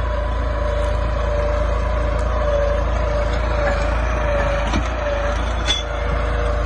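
New Holland 3230 tractor's three-cylinder diesel engine running steadily under load as it pulls a reversible mouldboard plough through the soil, a deep even rumble.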